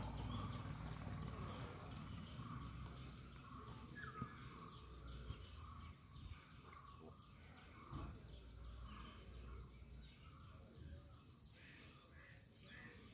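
Faint outdoor ambience with scattered bird calls, under a low rumble that fades over the first half.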